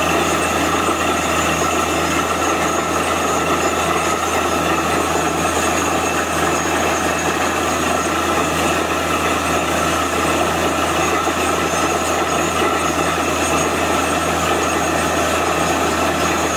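Truck-mounted borewell drilling rig running loud and steady while it drills, with muddy water and rock cuttings spraying out of the borehole around the drill pipe.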